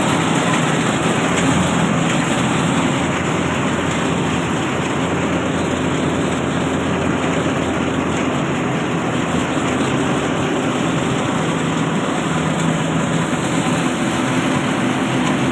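Yanmar YH700 full-feed combine harvester running steadily: a constant engine hum under dense, even machinery noise.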